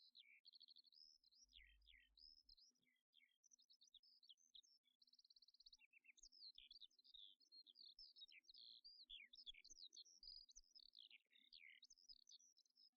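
Faint songbirds singing: a busy run of quick, varied chirps, trills and falling whistles.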